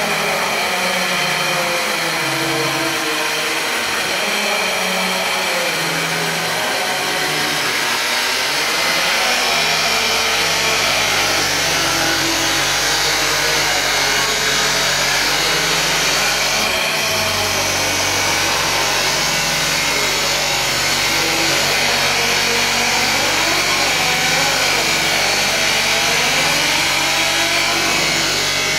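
Intermac Master Stone 4000 CNC stone-working machine running, its spindle tool grinding into a stone slab under a stream of coolant water. It gives a steady high whine over lower tones that waver up and down, and a deeper hum joins about a third of the way in.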